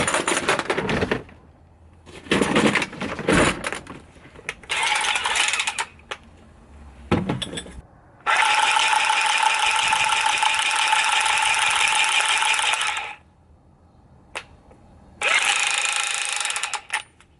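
Scraping and clattering of metal on copper fittings, then a Milwaukee M12 cordless copper tubing cutter running with a steady whir, once for about five seconds and again more briefly near the end. The soft copper makes the cut take longer than usual.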